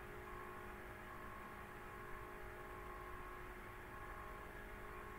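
Faint steady background hum and hiss with no speech: the room tone of the presenter's microphone. A faint high tone drops out and comes back every second or so.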